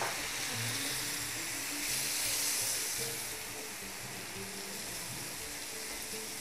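Meat frying in a pan, a steady sizzle that swells louder for about a second around two seconds in. Quiet background music with low held notes runs underneath.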